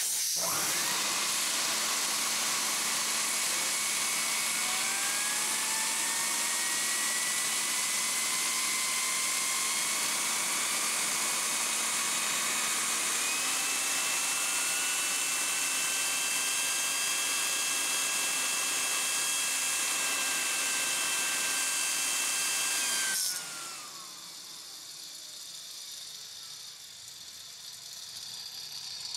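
Loud hiss of compressed air from a blow gun aimed at a tin can turbo jet engine's rotor wheels, with a whine that rises in pitch as the shaft spins up. About 23 seconds in the air cuts off and the whine falls away as the rotor spins down.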